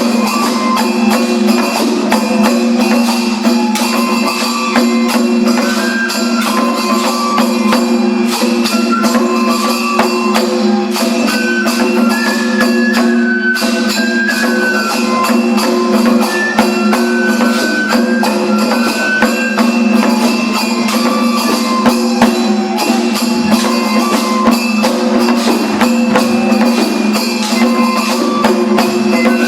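Daikagura festival music: a high melody stepping up and down over fast, continuous percussion strikes.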